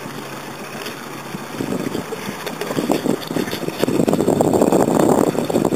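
Wind and water noise around a small boat on open water: a steady rushing hiss that grows louder from about two seconds in.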